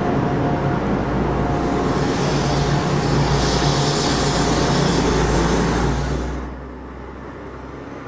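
A tour coach passing close by, its engine and tyres loud as it goes past, then dropping away about six seconds in, leaving lighter car traffic.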